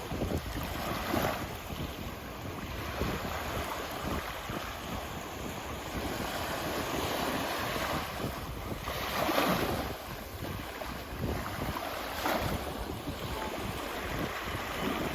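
Waves washing onto a beach, with wind buffeting the microphone; the surf swells louder about nine seconds in and again about twelve seconds in.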